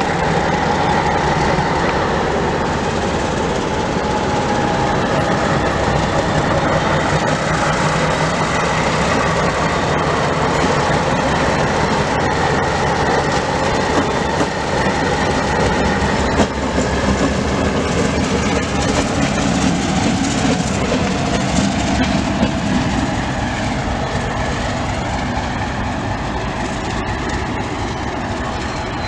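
Diesel locomotive A-465 running light past at low speed, its engine droning steadily, with a few sharp clicks of wheels over rail joints about midway; the sound fades slightly as it moves away.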